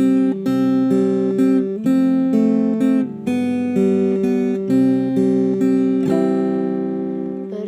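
Instrumental break of a slow ballad: acoustic guitar strumming chords, with a final chord left ringing and fading near the end.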